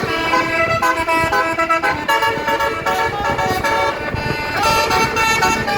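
Indonesian 'telolet basuri' bus horn playing a tune: a quick run of pitched horn notes, each held a fraction of a second before jumping to the next.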